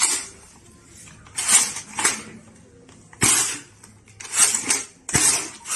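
S100 foam-dart toy blaster being cocked and fired: a run of sharp plastic clacks and snaps, about five, roughly a second apart, some with a short hiss.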